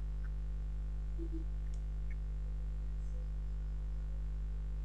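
A steady low hum with a few faint, brief clicks.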